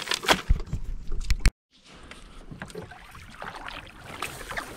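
Knocks and clunks of a cast net being handled in the bottom of a small boat, its weighted edge knocking against the hull. The sound cuts off abruptly about a second and a half in, then gives way to quieter water and wind noise with scattered light knocks.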